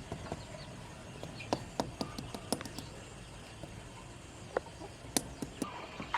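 Irregular light taps and clicks, a few a second, with a few sharper knocks standing out.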